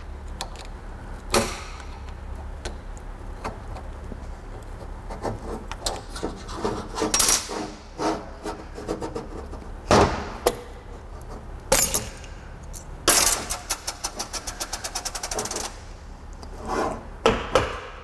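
Steel punch scraping and clicking against the snap ring in a Saginaw power steering pump's end cover as the ring is pried out of its groove. Several sharp metal clinks and, later on, a fast run of ticks lasting a couple of seconds.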